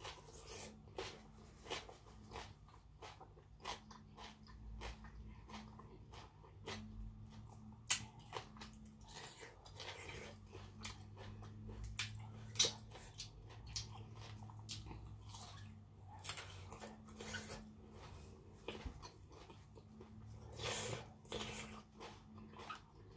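Chewing and crunching close up: many short wet mouth clicks and crisp bites as a person eats raw beef with spicy green papaya salad and fresh leafy vegetables.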